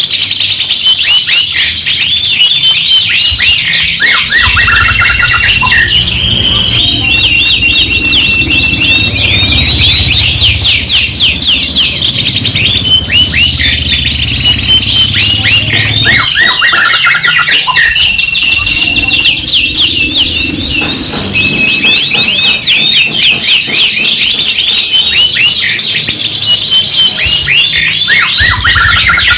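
Several domestic canaries singing at once: dense, fast rolling trills and chirps mixed with long held whistled notes, loud and without a break. A low hum runs underneath for much of it.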